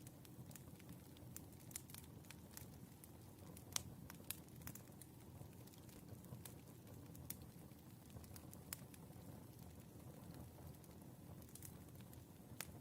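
Firewood burning with a faint low rumble and scattered sharp crackles and pops, the loudest pop a little under four seconds in.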